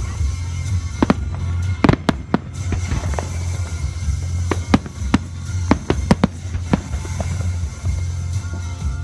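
Aerial fireworks shells bursting, about a dozen sharp bangs and cracks coming irregularly, several in quick succession, over steady background music.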